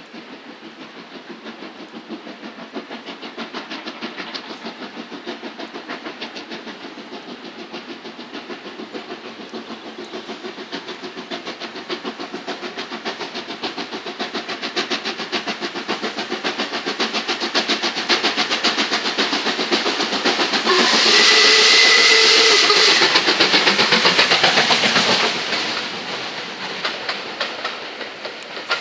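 LMS Black Five 4-6-0 steam locomotive 44871 working towards the listener, its exhaust beats coming fast and regular and growing steadily louder. It passes closest about 21 seconds in with a loud hiss of steam lasting about four seconds, then the beats fade as the coaches roll by.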